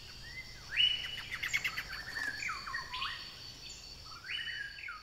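Bird-like chirping calls in three short groups, each jumping to a high note and sliding down in pitch, over a faint steady high-pitched whine.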